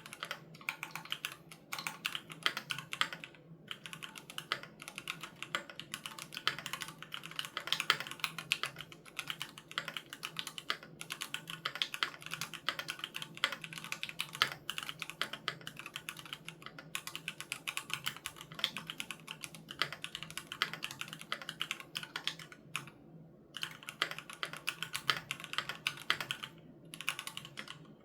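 Continuous fast typing on a Keychron Q3 Knob mechanical keyboard with Gateron G Pro Red linear switches, a dense run of key clacks broken by a few short pauses.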